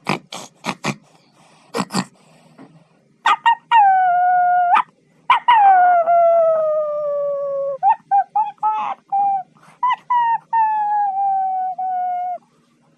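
A dog making a few short sharp yelps, then howling: three long drawn-out howls that slide slowly down in pitch, with short yips in between.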